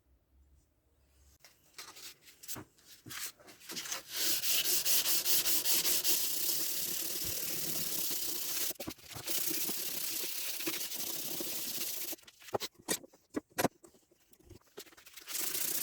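Sanding by hand on the billhook: a few short rubbing strokes, then steady rubbing for several seconds with a brief break in the middle, then more short strokes and steady rubbing again near the end.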